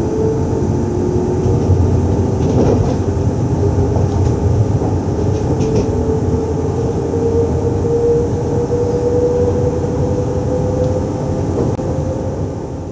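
SNCF Z2N double-deck electric multiple unit Z 20851 running, a steady loud drone with an electric whine that rises slightly in pitch through the middle, and a few faint clicks.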